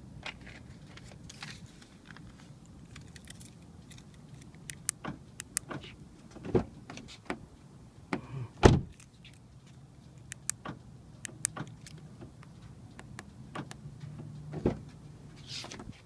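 A 2013 Hyundai Sonata's door handle and lock being worked by hand: a scatter of sharp clicks and knocks, the loudest knock about halfway through, over a low steady hum.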